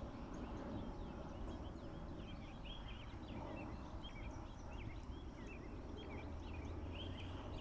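Many birds chirping and calling over one another in quick short notes, over a low steady background rumble.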